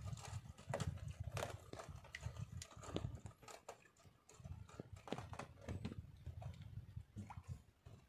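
Irregular hollow knocks and slaps on a small outrigger fishing boat afloat at sea, over a low rumble.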